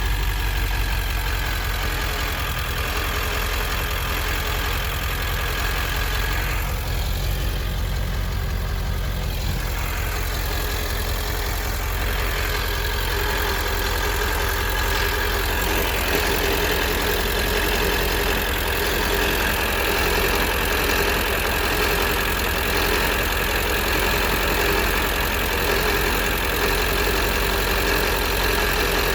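Ford 7.3L Power Stroke V8 turbodiesel running at low speed while the truck creeps in second gear in 4x4 low, carrying an unidentified noise from the ZF6 manual transmission's driveline. The noise comes under load with no throttle applied. Steady tones ride over the engine's rumble; they fade for a few seconds and return stronger about twelve seconds in.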